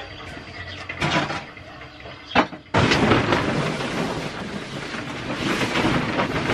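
A few knocks, then, about three seconds in, loud close-up rustling and crinkling of a blue plastic tarp being handled.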